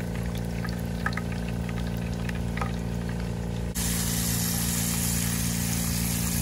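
Flour-dredged cottonmouth frying in hot oil in a pan: scattered crackles and pops at first. Then, about four seconds in, it switches suddenly to a louder, steady sizzle.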